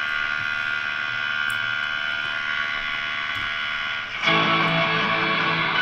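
Music from a broadcast station playing through the speaker of a 1946 Kriesler 11-4 valve radio, getting louder about four seconds in as the volume is turned up. The set is cutting in and out with an intermittent fault, which the restorer traced to a poorly connected aerial.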